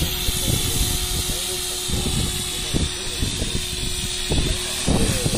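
Radio-controlled model helicopter flying: a steady high motor whine that wavers slightly in pitch, with a lower steady hum, over heavy wind buffeting on the microphone.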